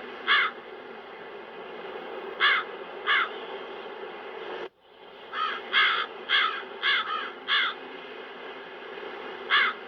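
Crows cawing: single caws early on, a quick run of about six caws just past the middle, and one more near the end, over a steady wind sound effect. The sound briefly cuts out a little before halfway.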